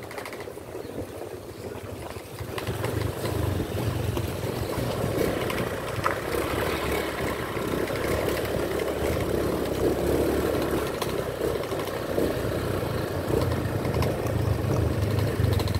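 Small motorcycle engine running as the bike rides along a rough dirt track, getting louder about two and a half seconds in and then holding steady.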